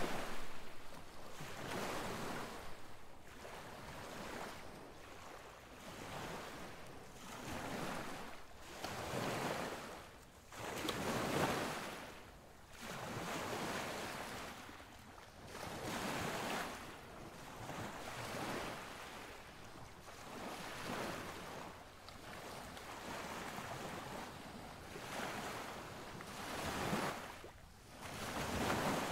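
Sea surf: waves washing in and draining back, the noise swelling and falling every couple of seconds.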